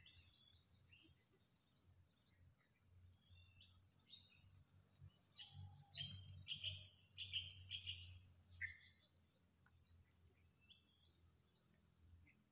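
Faint outdoor ambience: scattered short bird chirps, most of them in a cluster near the middle, over a steady high-pitched drone.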